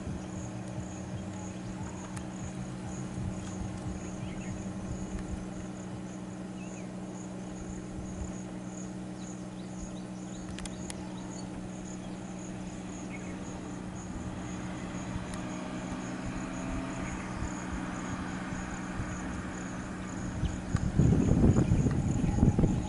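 Insects chirping in a steady high-pitched pulse, about two a second, over the steady low hum of an idling vehicle engine. Near the end a louder rumbling burst lasts about a second and a half.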